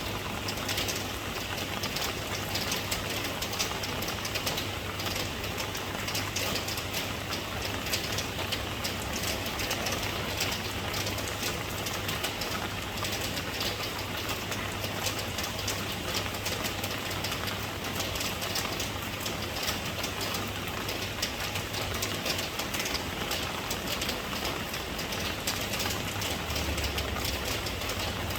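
Steady rain, a dense patter of countless drops, with a low steady rumble underneath.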